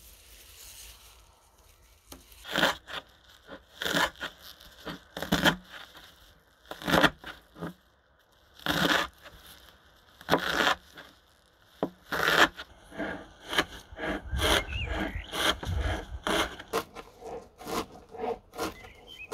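Kitchen knife cutting through a bunch of fresh wild garlic leaves on a cutting board: single crisp cuts about every second and a half, then from about two-thirds of the way through, quick repeated chopping as the leaves are minced.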